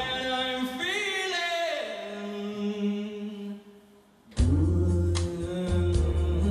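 A male singer holds a long sung phrase over soft backing, his voice sliding up and down about a second in and then settling on a low held note. The music drops almost to nothing for a moment past the middle, then the full backing comes back in suddenly with heavy bass and drum hits.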